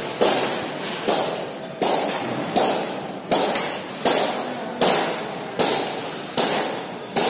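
Hammer blows on steel: about ten sharp metallic strikes, evenly spaced a little under a second apart, each with a high ringing clang that dies away before the next.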